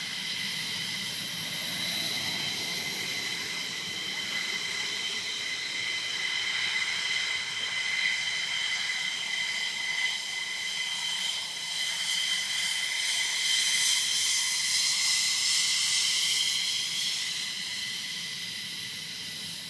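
F-15 jet engines running with a steady high-pitched whine over a rushing hiss. The sound swells louder about two-thirds of the way through, with a sweeping, phasing sound as the jet moves, then fades away near the end.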